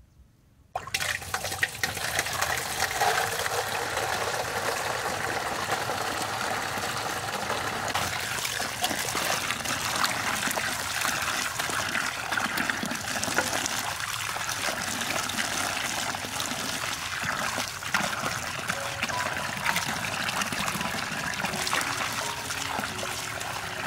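Tap water pouring into a metal basin full of eggplants and splashing as hands rub and rinse them; it starts suddenly about a second in and then runs steadily.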